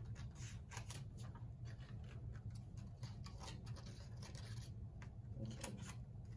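Scissors snipping through construction paper in a quick, irregular run of short cuts.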